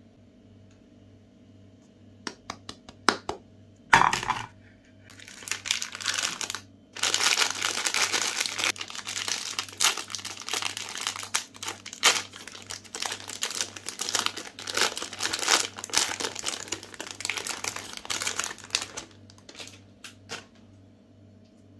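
Plastic Magnum ice cream bar wrapper being torn open and crinkled by hand. A few crisp crackles, one loud about four seconds in, then dense crinkling until it dies away near the end.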